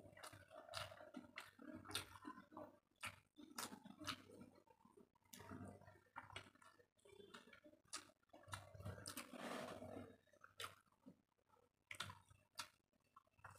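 Faint close-miked chewing with wet mouth clicks and lip smacks while eating rice with bitter gourd and potato fry by hand, the clicks coming at irregular intervals. A longer soft rustle comes about nine seconds in.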